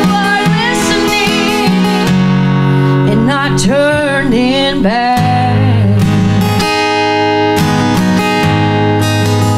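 A woman singing to her own strummed cutaway acoustic guitar, heard live through a microphone. Her sung lines come in the first half or so, with the guitar chords carrying on alone toward the end.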